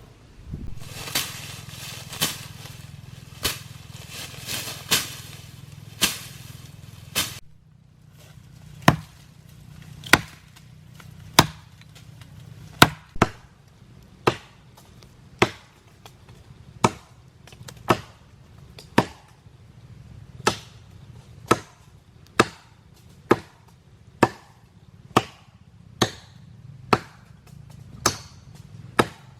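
Repeated chopping: a blade striking wood in sharp, evenly paced blows, about one a second.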